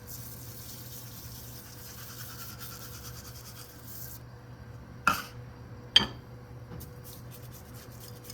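A cup of dry, uncooked white rice being poured into a pot of cream of mushroom sauce, a hiss of falling grains lasting about four seconds. Then two sharp knocks about a second apart, with a few lighter clicks after.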